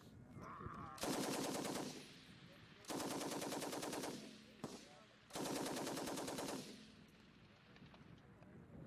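M60 7.62 mm machine gun firing three short bursts of automatic fire, each about a second long, with a single crack between the second and third bursts.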